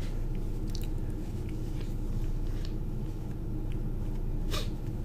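Paper tissue crinkling and rustling as a man wipes his nose: a few short, scattered crinkles, the loudest near the end.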